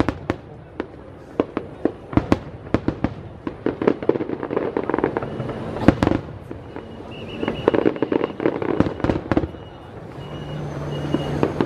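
Aerial fireworks shells bursting in an irregular string of sharp bangs, with denser runs of crackling pops between them and the loudest bang about six seconds in.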